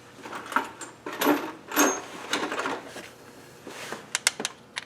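Metal sockets and driver bits clicking and clattering as they are picked through and handled in a tool case, in a series of short, irregular clinks and rattles.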